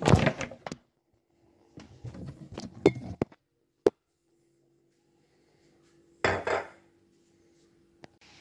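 Cookware and cabinet doors being handled, metal pans clattering. There is a loud clatter at the start, a run of knocks about two seconds in, a single sharp click, then two knocks near the end.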